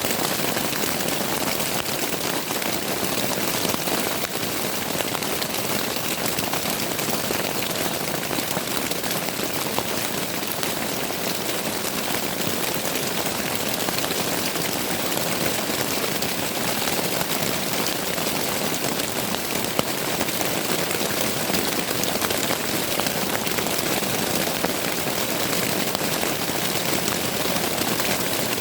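Steady rain pattering on a tent, a dense hiss of drops with many small taps.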